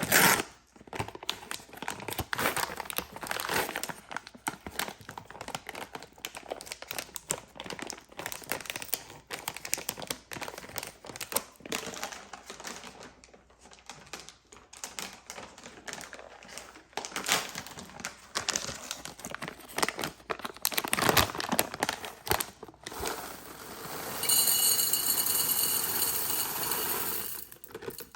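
Candy and chocolate wrappers being crinkled and torn open by hand, with dense irregular crackling. Near the end a louder, steadier sound with a high whistle-like edge lasts about four seconds.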